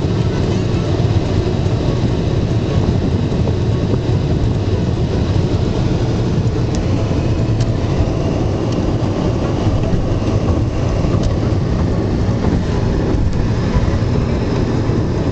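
Steady road and engine noise of a car driving at highway speed, heard inside the cabin, with a heavy low rumble.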